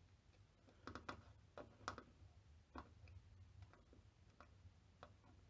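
Near silence over a faint low hum, broken by scattered small ticks and clicks, loudest about one and two seconds in, as a soldering iron tip and a white wire are worked against a solder pad on an LED backlight strip.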